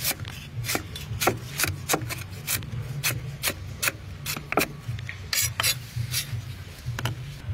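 A large kitchen knife slicing a fibrous root on a wooden chopping board: a steady run of short, sharp cuts, about three a second.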